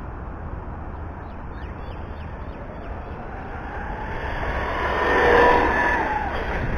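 Electric RC buggy's brushless motor and drivetrain (Hobbywing Max6 combo, 1650KV, on 6S) whining as the car runs flat out over asphalt with tyre noise underneath. The sound grows louder to a peak about five seconds in, then drops in pitch and fades as the car goes past and away.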